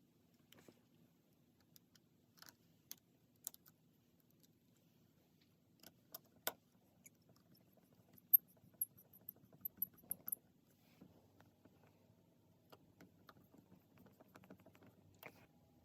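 Small metal tools and parts being handled during phone reassembly: scattered light clicks and taps as tweezers and a small screwdriver set the internal metal brackets and their tiny screws back in place, with a quick run of thin, high metallic ticks in the middle.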